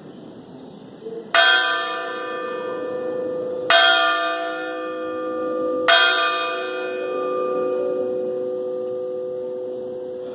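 A church bell struck three times, a little over two seconds apart, each stroke ringing on and slowly fading. It is rung at the elevation during the consecration of the Mass.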